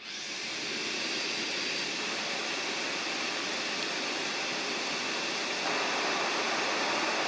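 A stand-type pet grooming dryer blowing at full airflow: a steady, loud rush of air that starts abruptly as it is switched on and gets slightly louder near the end.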